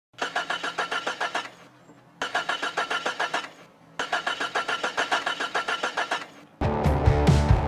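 Jeep engine cranking on its starter in three tries of one to two and a half seconds each, a fast even chug of about eight strokes a second that never catches. It cranks but doesn't start because the fuel pump is stuck. Guitar music cuts in near the end.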